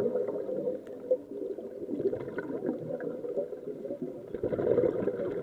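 Muffled underwater rumble and gurgling of water heard through an underwater camera, growing busier about four seconds in.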